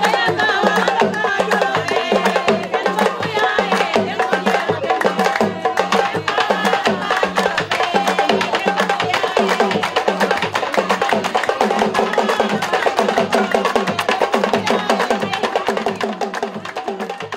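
Drums and sharp clicking percussion playing a fast, steady dance rhythm, with voices singing over it; the music starts fading near the end.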